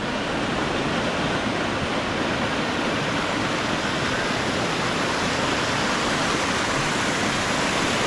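Steady, even rush of stream water tumbling over rocks in a small cascade.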